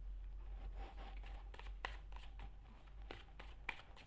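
Playing-card-sized tarot cards being handled: a scatter of faint, sharp clicks and soft taps as cards are pressed down and the deck is moved, over a low steady hum of room tone.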